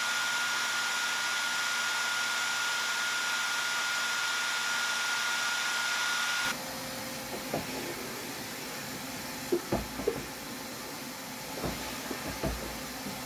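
Yellow wet/dry canister vacuum cleaner running steadily with a high whine over its airflow noise. About halfway through the sound drops at once to a quieter, lower hum, with several sharp knocks as the nozzle works along the wooden headboard shelves.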